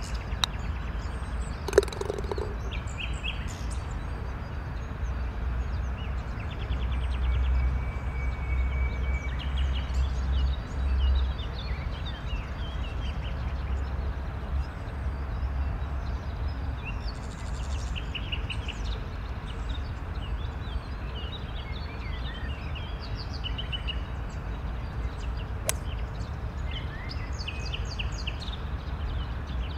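Small birds chirping and calling on and off over a steady low rumble, with a sharp click about two seconds in and another near the end.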